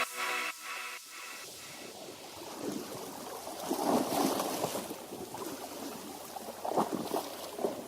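Sea water lapping and splashing in irregular swells, as the last notes of a music track die away in the first couple of seconds.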